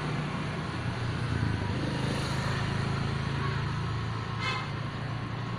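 Steady motor-vehicle engine and traffic rumble, with one short high sound about four and a half seconds in.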